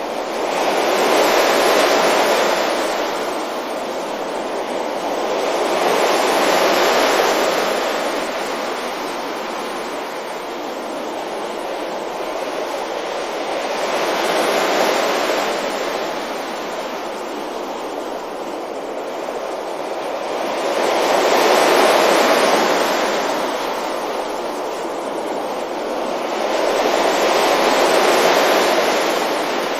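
Sea waves breaking gently on a beach, the surf swelling up and washing back five times, one wave every five to eight seconds.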